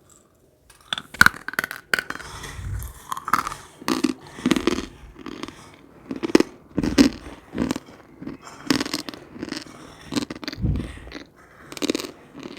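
Brittle dried cornstarch film being bitten and chewed close to the microphone: an irregular run of sharp crunches and cracks that starts about a second in.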